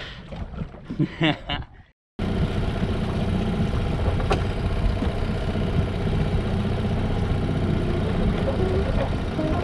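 Boat's outboard motor running steadily, an even low hum under the boat.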